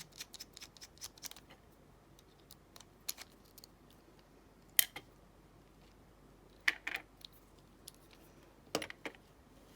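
Small metal lock parts and tools clicking against each other and a hard surface while a padlock's cylinder is taken apart: a run of light ticks at the start, then a few sharper separate clicks, the loudest about five seconds in.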